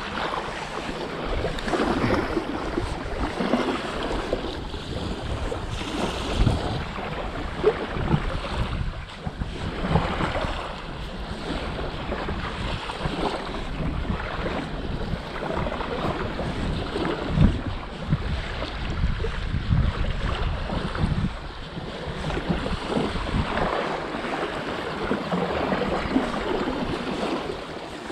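Small waves washing up on a sandy beach, with wind buffeting the microphone in irregular low thumps.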